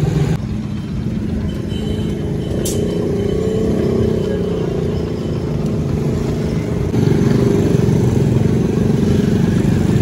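Motorcycle engine running steadily, a low rumble that gets louder about seven seconds in.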